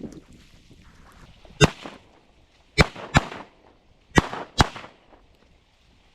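Five shotgun blasts from duck hunters shooting: a single shot, then two quick pairs of shots.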